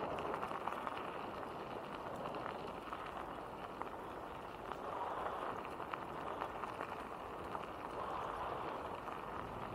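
Bicycle tyres rolling over a loose gravel path: a steady gritty rustle with scattered small clicks of stones under the wheels.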